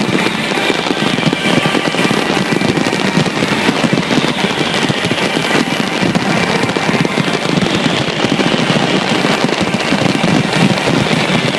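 Fireworks display going off continuously: a dense, unbroken run of bangs and crackles, with music playing underneath.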